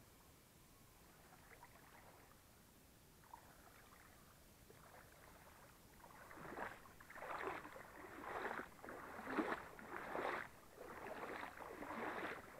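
Footsteps wading through a shallow river, each step a splash of water. Faint at first, then from about halfway through a regular splash a little more often than once a second.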